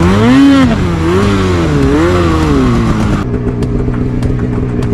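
Mountain snowmobile engine revving up and down several times as the throttle is worked, then settling to a steadier, lower-pitched run about three seconds in.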